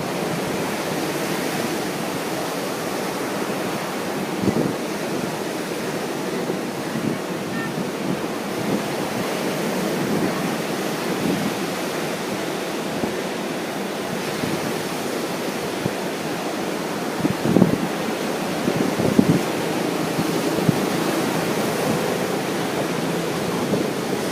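Ocean surf washing onto a beach under a strong wind, a steady rushing noise, with wind buffeting the microphone in a few brief louder gusts.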